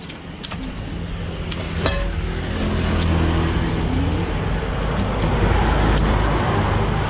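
A motor vehicle engine running close by, growing louder about a second in and holding steady, with a few light clicks.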